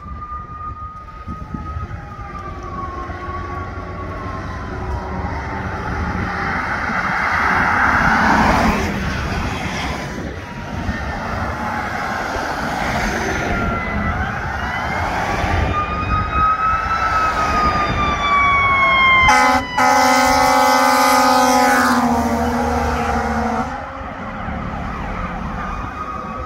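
Approaching fire engine (a 2003 American LaFrance Eagle) running its wailing siren, which rises and falls slowly over traffic noise. About 19 seconds in, a long horn blast of about four seconds sounds, briefly broken near its start.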